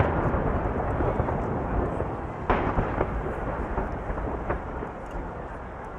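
Aerial firework shells bursting: a dense run of rumbling booms that trails off, then a single sharp bang about two and a half seconds in and a weaker one near the end.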